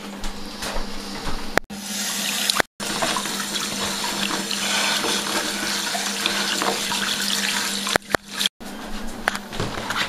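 Water running from a tap into a sink and splashing over a pink inflatable flamingo as it is washed by hand, a steady stream for several seconds in the middle. It is framed by shorter stretches of handling noise, and each change cuts off abruptly.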